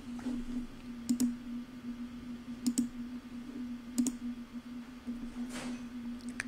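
Computer mouse clicking a few times, some clicks in quick pairs, over a steady low hum.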